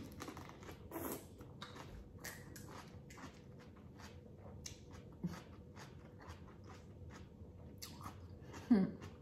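Someone chewing a bite of crisp raw green vegetable: a quiet run of short crunches, a couple each second, with a brief hum near the end.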